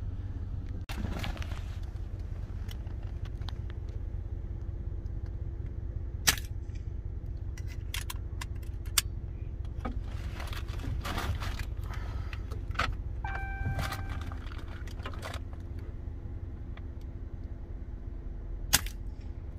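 Pickup truck's engine running with a steady low drone inside the cab, with scattered sharp clicks and light rattles, two of them louder, about six seconds in and near the end.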